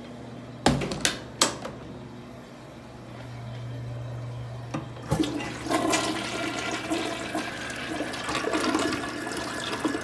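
A few sharp knocks in the first second and a half, then, about five seconds in, a commercial flushometer-valve toilet flushes with a loud rush and swirl of water that keeps going, over a steady low hum.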